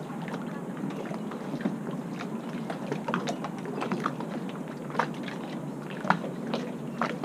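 Small waves lapping against moored motorboat hulls and a wooden jetty: irregular little splashes and clicks, a few each second, over a steady background hiss.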